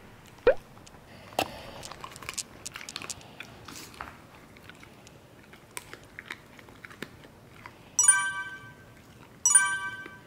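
A dog chewing a dried duck gizzard treat: a sharp click, then irregular crunching and clicking of teeth for a few seconds. Near the end, two bright electronic chimes sound about a second and a half apart, a countdown sound effect.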